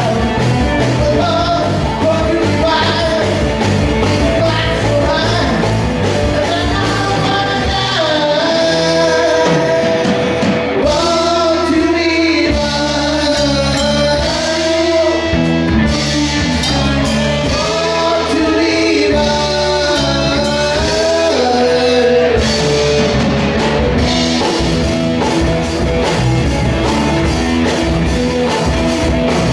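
Rock band playing live: a man singing lead over electric guitar, bass guitar and drum kit. The deepest bass thins out from about eight seconds in until about twenty-two seconds in.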